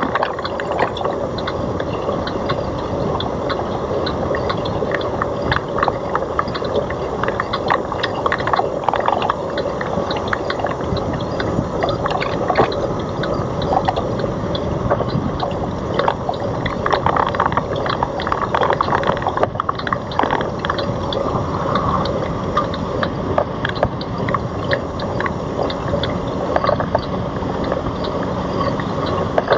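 Wind buffeting a GoPro's microphone on a moving Citi Bike, mixed with a steady run of small rattles and clicks from the bike as it rolls over the road.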